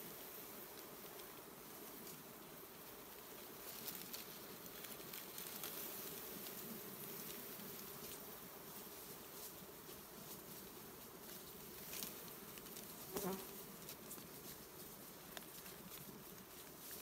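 Swarm of honeybees buzzing in a steady hum. A few brief crackles of dry leaves being handled come through, the loudest about 13 seconds in.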